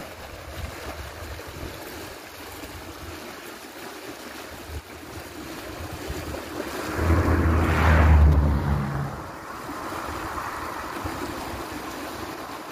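River water swirling and rushing in a whirlpool, with wind on the microphone. A strong gust buffets the microphone with a deep rumble about seven seconds in, lasting about two seconds.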